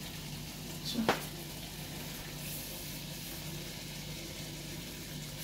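Pieces of beef with spices and yogurt sizzling gently in a pot on the stove, a faint steady sizzle, with one short click about a second in.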